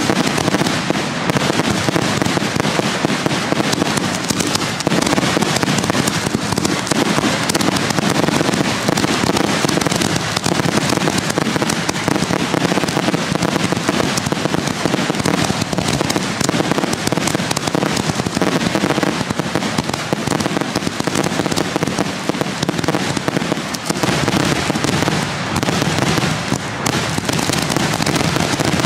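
A continuous barrage of aerial firework shells launching and bursting close overhead, many reports a second with no break. This is the finale of a fireworks show.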